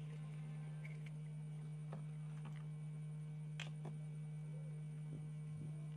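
A steady low electrical hum, with a few faint clicks of small tools and parts being handled on an opened iPhone 7, the sharpest about midway.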